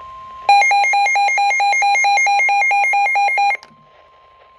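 Weather alert radio alarm sounding for a severe thunderstorm warning: a loud, harsh electronic beeping that warbles rapidly between two pitches, about four times a second, starting about half a second in and cutting off after about three seconds. A faint steady high tone continues underneath.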